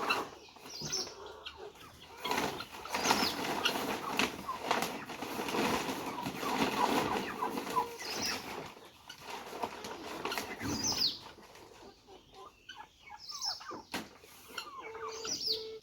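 Poultry flock clucking and calling, with wings flapping now and then. The calls are busiest through the first two-thirds and thin out near the end.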